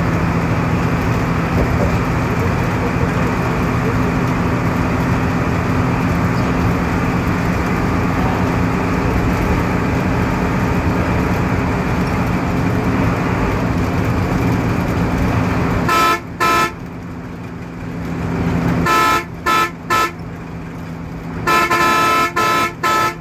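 Steady engine and road noise from inside a vehicle driving at speed. About two-thirds of the way in, the vehicle's horn begins sounding in short toots, in quick groups of two to four, and keeps honking to the end.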